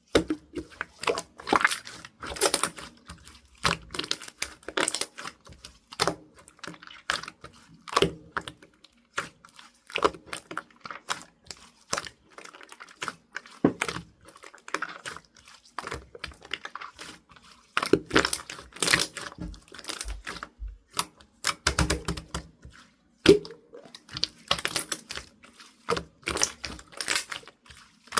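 Irregular clicking, tapping and crinkling of things being handled close to the microphone, in uneven clusters with short pauses.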